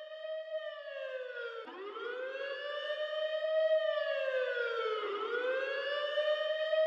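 A wailing siren, its pitch sweeping up quickly and then sliding slowly down, starting a new sweep twice, growing louder as it goes.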